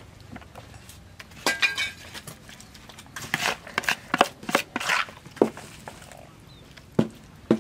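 Scattered clinks and knocks of metal utensils against a plate and dishes, one clink ringing briefly about a second and a half in.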